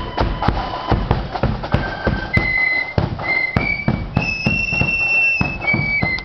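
Marching flute band playing a tune on high-pitched side-blown flutes, with regular drum beats keeping time underneath. One long held note comes about two-thirds of the way through.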